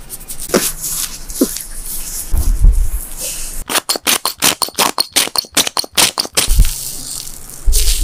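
Scratchy rubbing and brushing of grooming tools through a cat's fur. About halfway through comes a fast run of short strokes, several a second, with a few dull handling thumps before and after.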